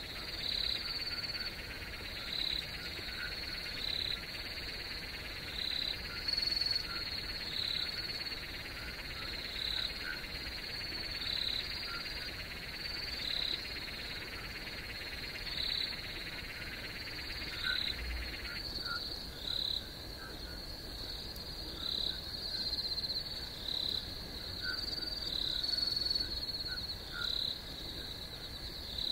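Night chorus of calling insects and frogs: a steady high trill with a short chirp repeating a little more often than once a second. A second, denser buzzing trill underneath cuts off suddenly about two-thirds of the way through.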